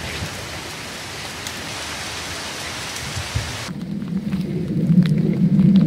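Heavy rain falling, a steady hiss. About four seconds in it gives way to a louder, deep rumble.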